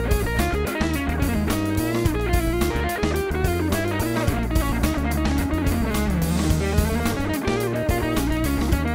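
Archtop hollow-body electric guitar playing a single-note improvised line with quick runs that rise and fall, over a backing of bass and drums.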